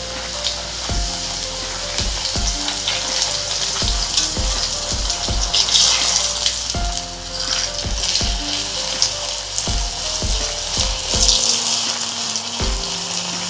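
Hot oil sizzling and crackling steadily as a stuffed wheat-flour puri deep-fries in a kadai, with background music that has held notes and a regular beat playing underneath.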